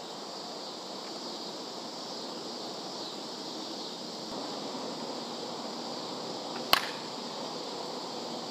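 One sharp crack of a 27 oz Worth Savij slowpitch softball bat striking a pitched softball, about two-thirds of the way through, over a steady outdoor hiss.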